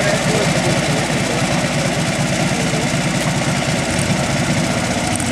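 Small garden tractor engine running steadily with a fast, even firing beat.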